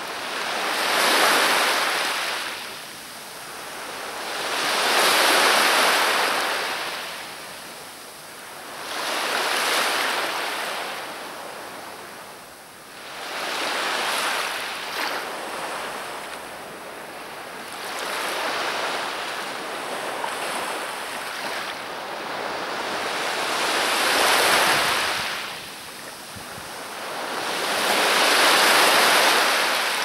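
Black Sea surf: waves breaking and washing up the shore, swelling and fading about every four seconds, seven times.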